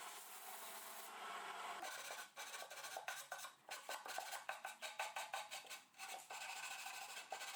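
Music with quick percussion: a run of sharp drum strikes starting about two seconds in.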